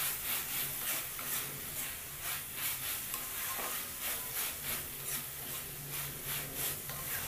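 Spatula stirring and scraping mint leaves frying in oil in a metal kadai: quick, regular scraping strokes over a steady sizzle, as turmeric is mixed into the mint.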